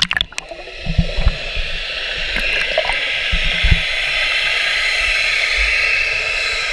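Water splashing as the camera goes under the surface, then the steady hiss and rush of moving pool water heard from underwater through the waterproof camera housing, with a few dull thumps in the first few seconds.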